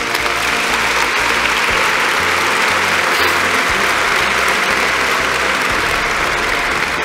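Audience applauding, building up right at the start and thinning near the end, over soft background music.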